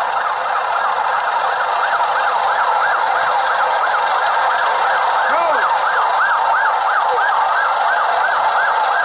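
Police car sirens in fast yelp mode, at least two overlapping, each rising and falling about twice a second, loud and steady.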